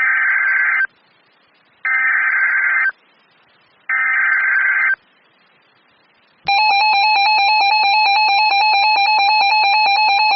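Emergency Alert System SAME header: three buzzing one-second bursts of digital data, each followed by about a second of silence. About six and a half seconds in, a continuous electronic attention tone begins, signalling that a warning message follows.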